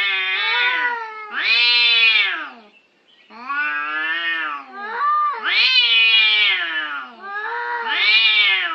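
Domestic cats yowling in a standoff: a run of long, wavering wails that rise and fall in pitch, with a brief pause about three seconds in. It is the threat caterwauling of two cats squaring up to fight.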